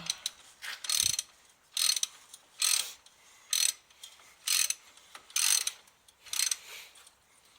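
Hand socket ratchet clicking in repeated short strokes, about one a second, as it turns a wheel-hub mounting bolt.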